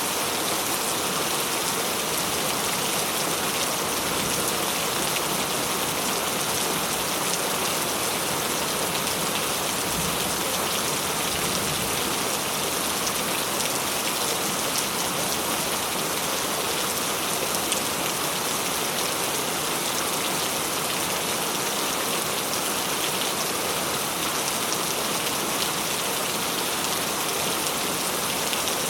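Steady rain falling, an even hiss of many drops that doesn't let up.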